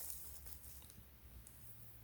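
Near quiet: a steady low hum with a few faint light ticks from a plastic-wrapped replacement glass touch screen being handled.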